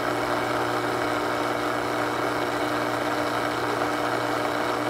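Intex 635T cartridge filter pump running, recorded up close: a steady electric-motor hum that holds even throughout.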